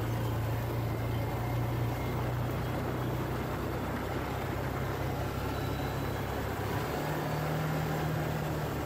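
ATV engine running at a steady trail-riding speed, heard from on board, over a steady rush of gravel and wind noise. The engine note steps up a little about seven seconds in.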